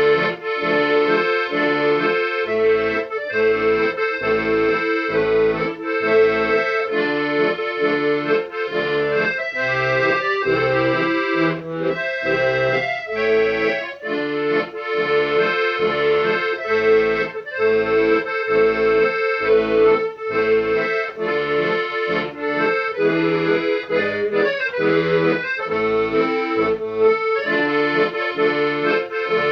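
Lively instrumental music, reedy held notes over a regular bass beat about twice a second.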